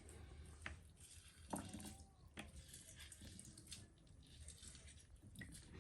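Faint drips and a few light knocks as a lemon is squeezed into a bowl of plain water for a cleaning solution, about five small clicks spread out, over a low steady hum.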